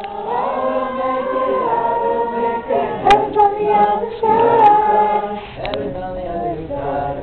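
A group of voices singing together in long held, sliding notes, with a sharp click about three seconds in.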